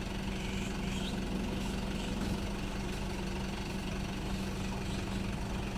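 Isuzu 600P aerial platform truck's diesel engine idling, a steady low rumble with an even hum.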